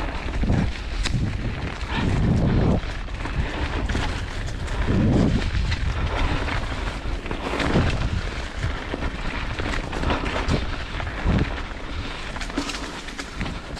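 Mountain bike riding downhill over rough trail, with wind buffeting the microphone, rumble from the tyres and frequent sharp knocks and rattles from the bike.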